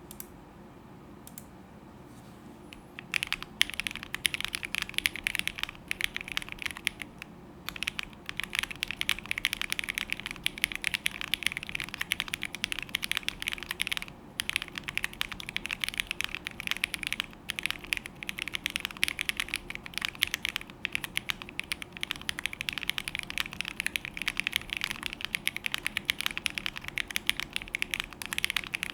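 Typing on a Choice65 mechanical keyboard with hand-lubed KTT Meow switches, a polycarbonate plate, case foam and GMK Colorchrome keycaps. After a few lone clicks, a fast, continuous patter of keystrokes begins about three seconds in, with brief pauses twice.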